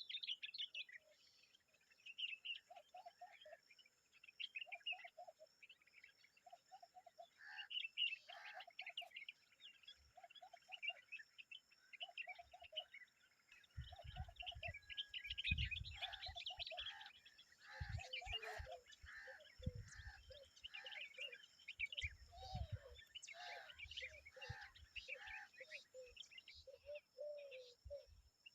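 Common babblers, an adult and her chicks, chattering and twittering in high calls, over a lower note repeated about once a second. Several low thumps come in the middle of the stretch.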